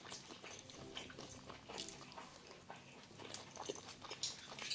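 Close-miked chewing of a mouthful of rice with kimchi stew: soft, wet mouth clicks and smacks at an uneven pace.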